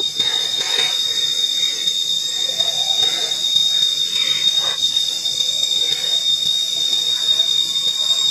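Steady, high-pitched shrill drone of an insect chorus, with faint scattered small knocks beneath.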